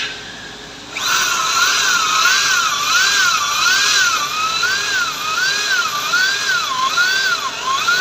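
Electric drill starting about a second in and whining at high speed, its pitch wavering up and down about twice a second as the load changes.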